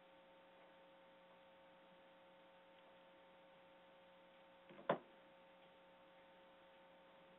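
Near silence: a faint steady electrical hum on the recording line, with one short sharp click about five seconds in.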